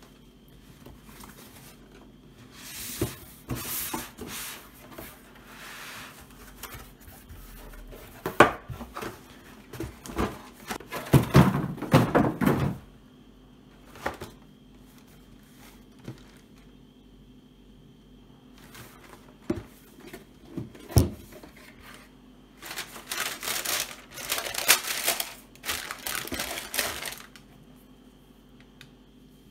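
Hands handling a cardboard sneaker box on a wooden table: knocks and taps of the box, the lid scraping and lifting off, and bouts of paper rustling and crinkling as the sneakers are uncovered.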